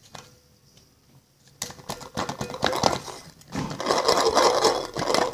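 Slime mixture being stirred fast in a container, the utensil clicking and scraping against the sides in a rapid run of strokes. It starts about a second and a half in and gets louder near the end.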